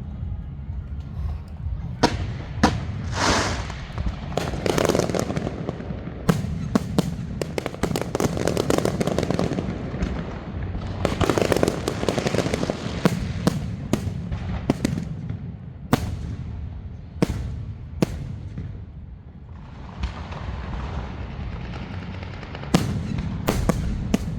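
Fireworks display: a string of sharp bangs at irregular intervals, with stretches of dense crackling between them.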